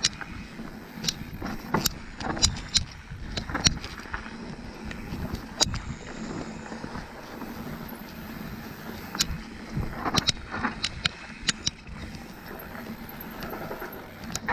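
A bike being ridden over rough ground: a steady rumble broken by frequent, irregular sharp rattles and knocks.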